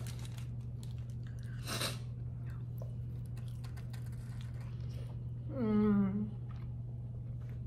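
A person biting into and chewing a shrimp quesadilla close to the microphone, with a short crunchy bite about two seconds in and faint mouth clicks, then a brief hummed "mmm" with a full mouth about six seconds in. A steady low hum runs underneath.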